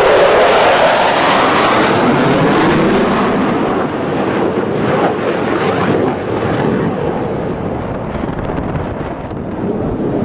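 Fighter jet's engine roaring loudly as it flies past, the pitch of the roar shifting as it goes by, then slowly fading over the last several seconds.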